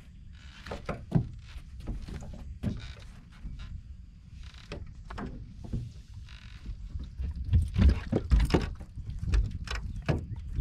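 Irregular knocks and thumps on a bass boat's deck as a small spotted bass is reeled in on a baitcasting rod and lifted aboard, with a few short hissing bursts in the middle and the heaviest thumps about three-quarters of the way through.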